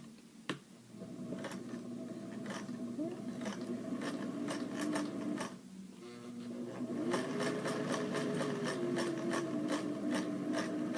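Singer straight-stitch sewing machine running through thick fabric, its motor pitch rising and falling with the pedal and the needle clicking in an even rhythm. It stops just as the sound begins, starts again about a second in, and pauses briefly about halfway before running on.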